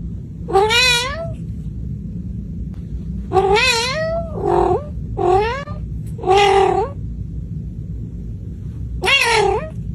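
Kitten meowing six times, short high calls that rise and then fall in pitch, with a longer pause before the last one, over a steady low background hum.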